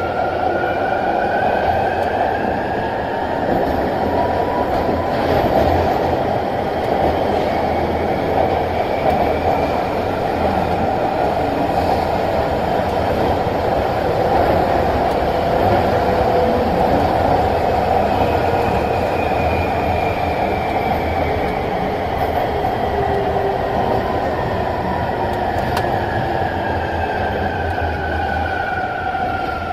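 MTR Longhua Line metro train, CSR Puzhen-built with ABB IGBT-VVVF traction motors, running between stations. Its traction whine climbs in pitch as the train picks up speed over the first several seconds, holds while it runs at speed, then falls in pitch as it slows over the last ten seconds or so, over steady wheel and running noise.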